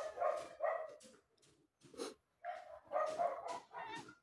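A dog yipping and whining in short repeated bursts.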